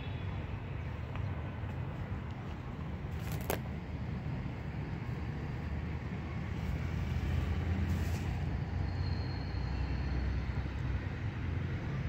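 Steady low outdoor background rumble, with a sharp click about three and a half seconds in and another about eight seconds in.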